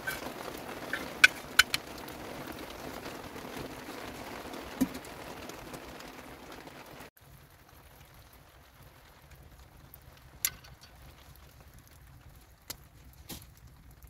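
Small wood fire burning in a stone fireplace, with scattered sharp crackles and pops. A steady hiss under the first half stops abruptly about halfway through, leaving only occasional pops.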